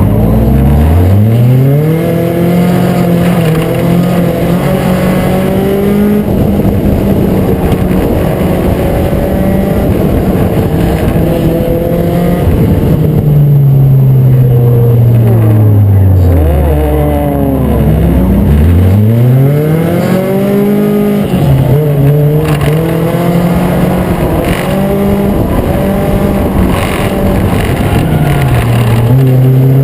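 Race car's four-cylinder engine running hard and continuously, with the revs rising and falling several times as it lifts for the turns and accelerates down the straights; other race engines rise and fall across it at times.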